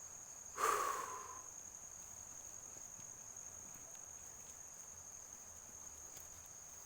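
A steady high-pitched insect drone, like crickets or cicadas, runs throughout. About half a second in, one loud sudden sound cuts across it and dies away within a second.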